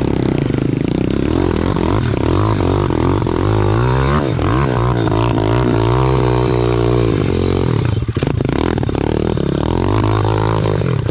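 Small single-cylinder pit bike engine running and revving up and down, its pitch rising and falling again and again, with a brief dip about eight seconds in.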